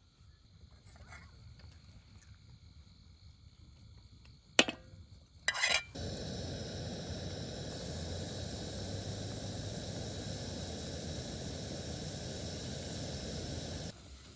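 Soy momos frying in hot oil: a steady sizzle starts about six seconds in and cuts off suddenly near the end. Before it, faint crickets chirp, then a sharp knock and a short clatter.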